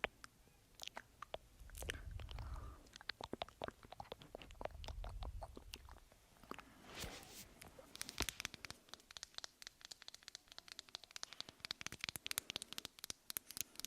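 Close-miked ASMR mouth sounds: quick wet clicks and smacks, with a couple of soft low swells in the first half. About eight seconds in they turn into a dense, crisp crackle.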